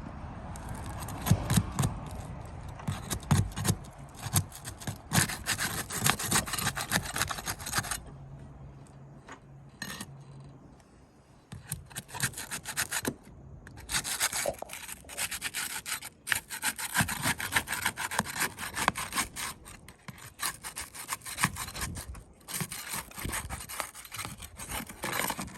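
Flat pry bar being worked under an asphalt roof shingle to break its adhesive seal strip: repeated scraping and rasping with many sharp clicks, easing off for a few seconds in the middle.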